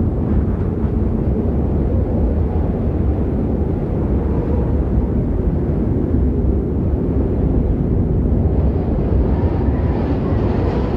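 Steady, low, rumbling wind of a snowstorm sound effect, even throughout with no separate events.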